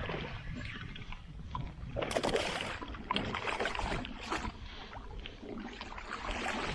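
Hooked smallmouth bass splashing at the surface beside a kayak, then water sloshing as it is scooped into a landing net, in several short bursts.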